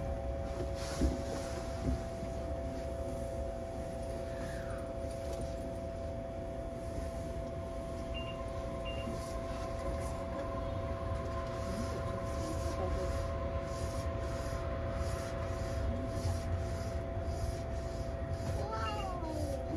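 Steady hum of a stationary Tokyo Monorail train's onboard equipment heard inside the driver's cab: several held tones over a low rumble. Brief falling whistle-like tones come about four seconds in and again near the end.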